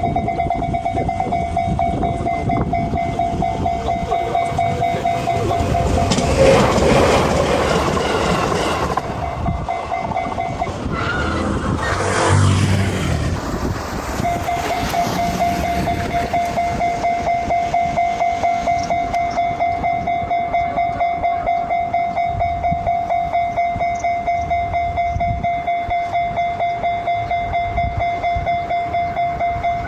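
Japanese railway level-crossing warning bell ringing in steady repeated dings. A passing train's rail noise swells about six seconds in and again around twelve seconds, and the bell drops out briefly.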